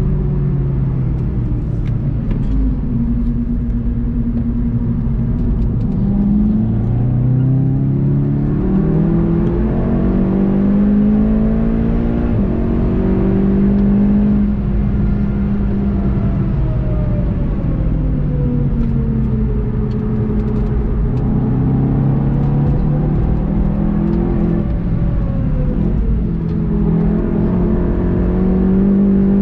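Onboard engine sound of a VW Golf 7.5 GTI TCR's turbocharged 2.0-litre four-cylinder at full pace, pitch climbing and stepping through the gears, then falling away under braking and downshifts before pulling again.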